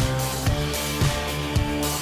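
Music with a steady beat, about two beats a second, over sustained pitched notes.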